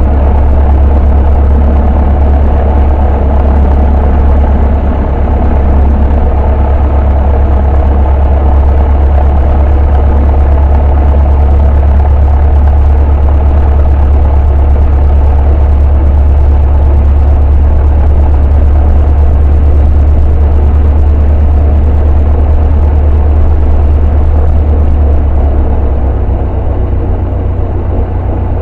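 Cessna 152's four-cylinder Lycoming engine and propeller running steadily, heard from inside the cockpit as a loud, deep drone. It eases a little near the end.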